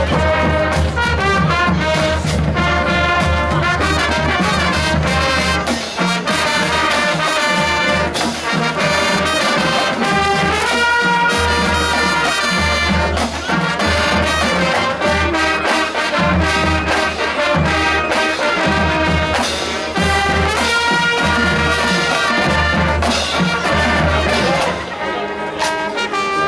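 Marching band playing, the brass section of trumpets and trombones carrying the tune over a steady pulsing beat.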